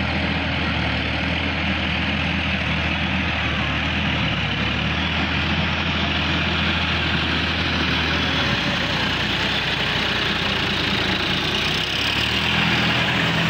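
Sonalika DI-50 RX tractor's diesel engine running steadily as it drives through wet paddy mud, with a steady hiss over the engine note. The engine note changes about two-thirds of the way through and again near the end.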